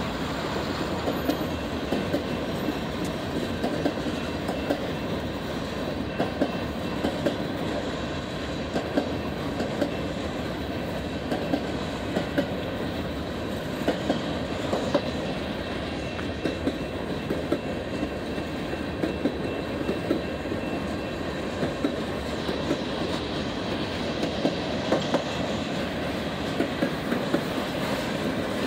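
Freight cars, mostly covered hoppers, rolling steadily past: a continuous rumble of steel wheels on rail, with sharp clickety-clack as wheels cross rail joints, coming in small groups as each car's trucks go by.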